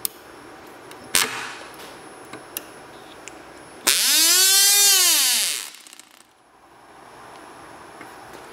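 Cox Tee Dee .010 two-stroke glow engine being flicked over by hand: a click, a pop about a second in, then a few small clicks. Almost four seconds in it fires and runs for about two seconds, a loud high whine that rises and then falls away as it dies.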